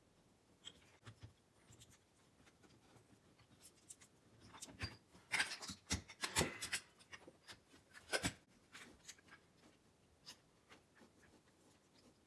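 Hands handling and fitting parts of a car pedal assembly with its master cylinders: scattered light clicks and knocks, becoming a busier clatter of knocks and rubbing in the middle, with a last sharp knock about eight seconds in.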